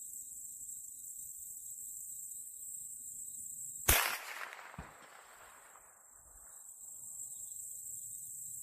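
A single rifle shot from a 16-inch-barrel Faxon AR10, a sharp crack with a rolling tail that dies away over about two seconds, and a fainter report about a second later. Insects buzz steadily behind it.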